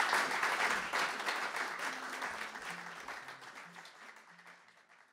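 Small audience applauding at the end of a song. The clapping fades away steadily and stops just before the end.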